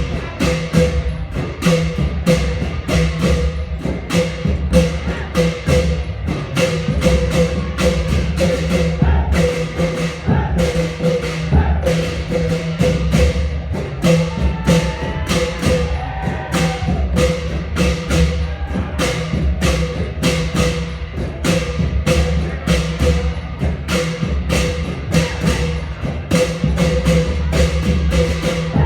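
Thai klong yao long drum ensemble playing a steady, driving rhythm: deep drum beats under fast, evenly spaced strokes of metal percussion, with a ringing note repeating on the beat.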